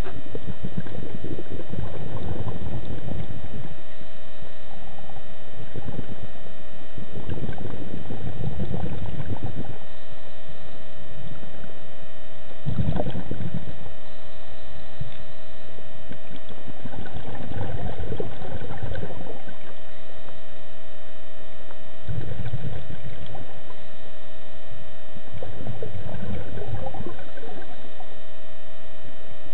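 Scuba diver's breathing heard underwater: rumbling bursts of exhaled bubbles from the regulator, about every four to five seconds, over a steady high whine.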